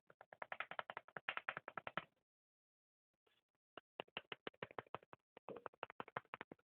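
Barber's hands striking a customer's head in rapid rhythmic slaps and claps as part of a head massage, about ten strikes a second. There are two runs, a pause of under two seconds between them.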